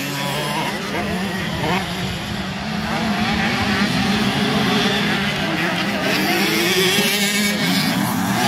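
Several 125cc motocross bikes racing past, their engines revving up and easing off in turn, with overlapping engine notes that rise and fall.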